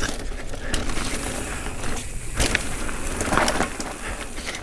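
YT Jeffsy 29 full-suspension mountain bike rolling fast down a dirt forest singletrack: continuous tyre and trail noise with scattered knocks and rattles over bumps, the loudest a little after two seconds and about three and a half seconds in.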